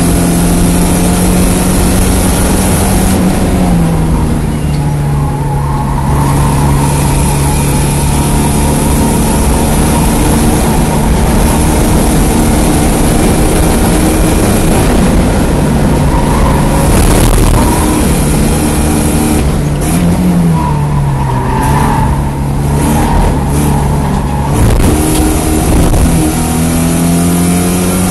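1987 Porsche 924S's 2.5-litre four-cylinder engine running hard under racing load. Its pitch drops about three seconds in, holds lower through the middle, wavers, then climbs again near the end, over a steady rush of wind and road noise.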